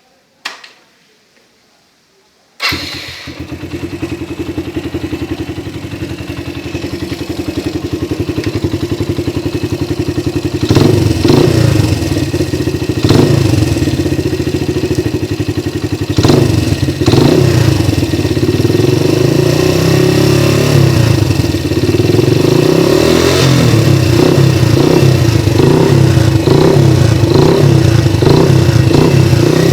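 Suzuki Yes 125 motorcycle's single-cylinder four-stroke engine breathing through a Roncar aluminium 'boca 8' aftermarket exhaust. After a single click, the engine starts about three seconds in and idles, then is revved in several quick blips from about ten seconds on and held at higher revs with repeated blips near the end.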